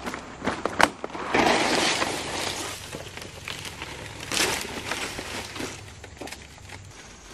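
Rustling and crackling of dry vegetation being handled. There are sharp knocks about half a second and just under a second in, a loud rustle lasting about a second, and another crack partway through.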